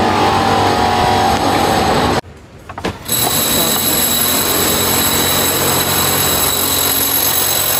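Loud, steady power-drilling noise from construction work. It cuts out for under a second about two seconds in, then comes back with a steady high whine over the rumble.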